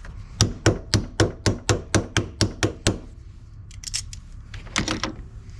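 Hammer tapping on a battery cable terminal: about eleven quick, even blows, roughly four a second, then a few lighter clicks.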